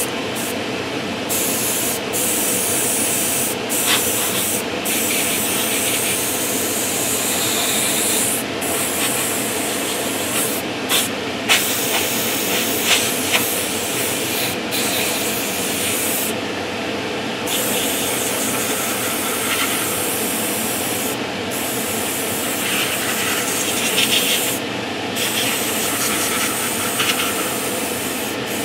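Airbrush hissing as it sprays a very thin, wet coat of heavily thinned paint. The hiss cuts out briefly several times along the way.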